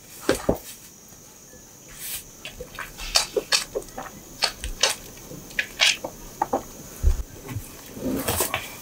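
Calf suckling at a cow's udder while the cattle shift in the stall: irregular short wet clicks and knocks, a few with a dull low thud.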